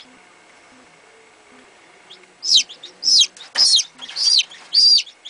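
Newly hatched chicken chick peeping loudly: after a quiet start, five shrill peeps about half a second apart, each falling in pitch.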